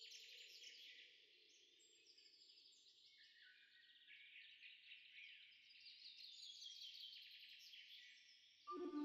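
Faint chorus of many birds twittering and chirping at once, short high calls overlapping without a break. Near the end, soft ambient music with steady held tones comes in suddenly.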